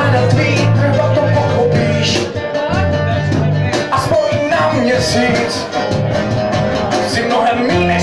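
Live band playing an unplugged song: a male singer's voice into a microphone over a steady bass guitar line and guitars.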